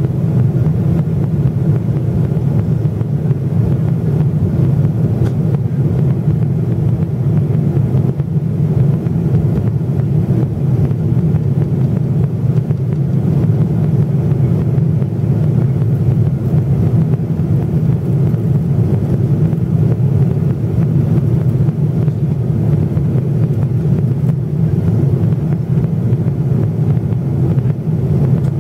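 Steady, low cabin noise inside a Boeing 777-300ER in its climb: airflow over the fuselage and the two GE90-115B turbofans, an unbroken rumble with a faint steady hum.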